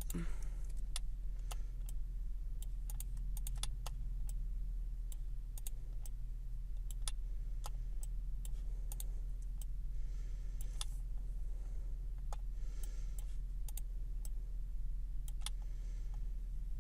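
Irregular clicks and taps of a computer mouse and keyboard over a steady low electrical hum.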